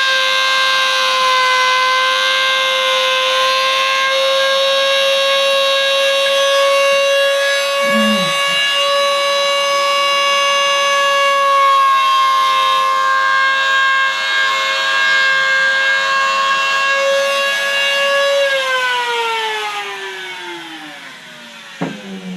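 Dremel rotary tool running at high speed with a steady high whine, cutting wire holes through the carbon-reinforced servo pocket walls of a foam wing. Near the end it is switched off and the whine falls in pitch as it spins down.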